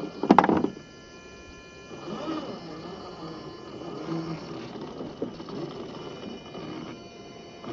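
Small electric motor and gear drive of a 1/10-scale RC4WD Trail Finder 2 rock crawler whining steadily as it creeps over loose rock, with a loud crunch of tyres and chassis on stones about half a second in.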